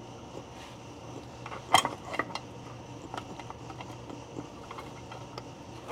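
Metal drum brake parts clinking and clicking as they are handled and fitted onto the brake backing plate, with one sharp loud click near the two-second mark and lighter clinks after it, over a steady low hum.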